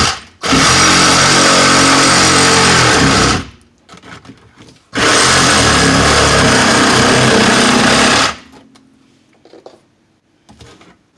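Reciprocating saw (Sawzall) with a fine-tooth metal-cutting blade cutting through drywall, run in two bursts of about three seconds each with a short pause between.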